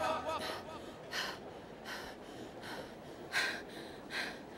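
Voice-acted heavy panting: short breathy gasps, about one every second, from characters out of breath after exertion.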